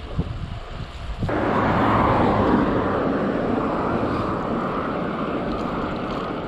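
Wind buffeting the microphone of a chest-mounted action camera on a moving bicycle: low gusty thumps, then about a second in an abrupt cut to a louder, steady rush of wind noise that eases slightly toward the end.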